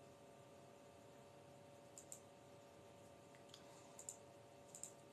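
Near silence: room tone with a faint steady hum and a few soft clicks, mostly in quick pairs.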